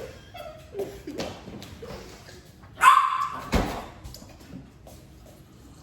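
A dog barking, loudest about three seconds in, with a sharp knock just after the bark.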